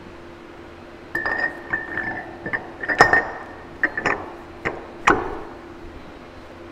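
8-inch steel face mill being fitted onto a horizontal boring mill's spindle nose: a string of metal-on-metal clinks and knocks with a ringing note, from about a second in until about five seconds in, over a steady hum.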